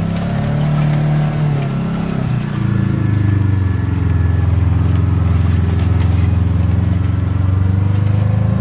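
Kawasaki Teryx KRX 1000 side-by-side's parallel-twin engine running under load while the machine pushes through deep snow. The engine note wavers and drops about a second in, then holds steady.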